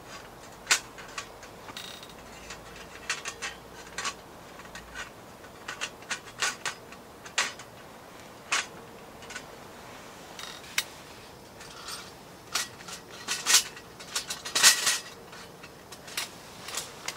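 Scattered sharp clicks and knocks of hard gear being handled, at no steady rhythm, busier near the end.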